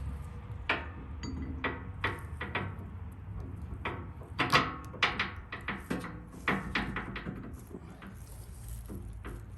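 Irregular knocks and clanks of tow hook hardware being handled and fitted, about twenty sharp hits at uneven intervals, the loudest a little past halfway.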